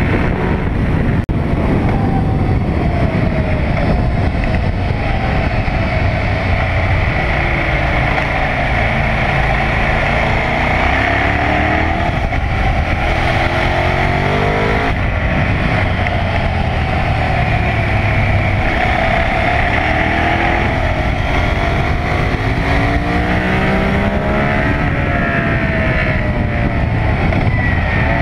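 KTM 990 SMR's 999 cc V-twin engine at racing speed, its pitch climbing again and again as it accelerates hard through the gears and dropping away for braking into the corners.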